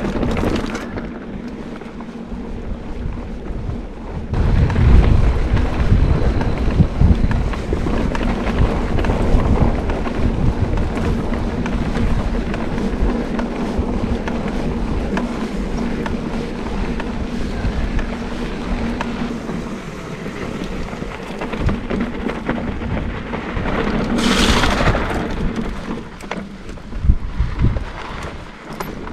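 Wind buffeting the microphone over the rumble and rattle of a mountain bike's knobby tyres rolling on dry dirt singletrack. The rumble grows louder about four seconds in, and there is a brief rushing hiss near the end.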